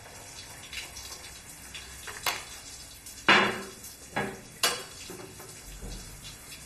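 Dishes and glassware being handled on a glass tabletop: about six separate clinks and knocks, the loudest about halfway through.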